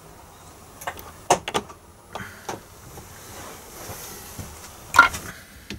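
Small plastic clicks and taps as a 15 amp blade fuse is handled and pushed into a blade fuse block, with a sharper, louder click about five seconds in.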